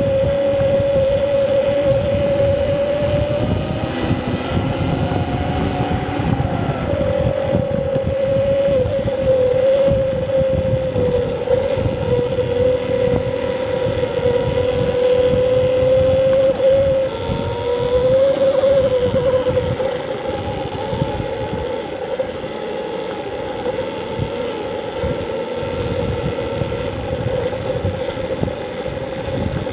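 Electric dirt bike's motor whine while riding, its pitch rising and falling with speed, over a rough low rumble from the ride.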